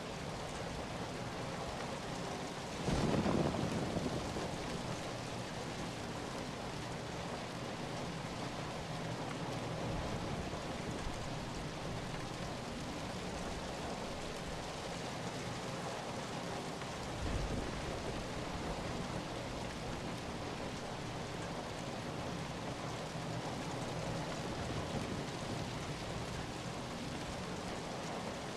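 Steady rain falling, an even wash of noise, with a brief louder low rumble about three seconds in and a smaller one later on.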